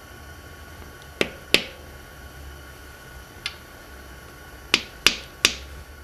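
Sharp metal taps of a thin tool against a new crankshaft front seal, working it flush into the aluminium oil pump housing of a Subaru EJ engine. A pair of taps comes about a second in, a lighter one in the middle, and three in quick succession near the end.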